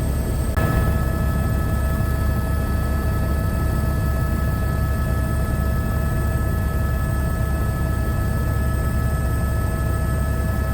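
Steady mechanical hum: a strong low rumble with several constant whining tones over it, which change slightly about half a second in.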